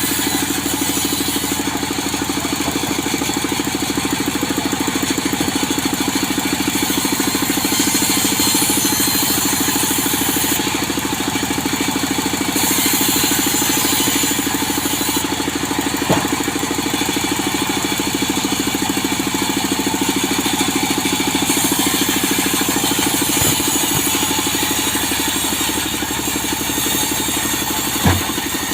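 Engine-driven saw running steadily as it cuts teak wood into boards. Two sharp knocks stand out, one about halfway through and one near the end.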